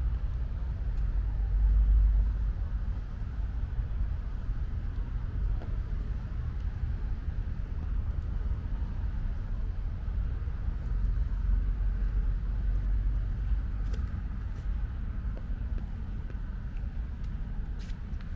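Light rain falling with a steady low rumble of road traffic under it, and a few faint ticks near the end.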